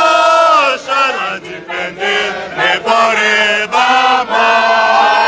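A crowd of football supporters chanting together in unison, in short repeated phrases, with the voices running into a steadier held chant near the end.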